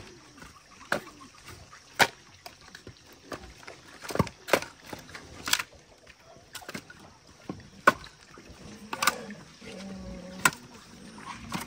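Split firewood pieces knocking against each other as they are picked up from a pile and stacked into an armload: about nine sharp wooden clunks at irregular intervals.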